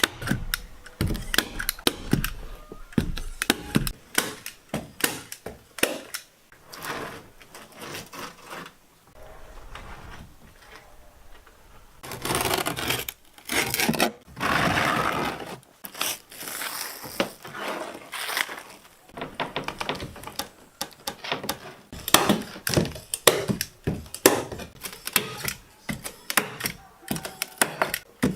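Hand-tool woodworking: a long run of irregular knocks and taps, with a few seconds of denser rasping noise about halfway through.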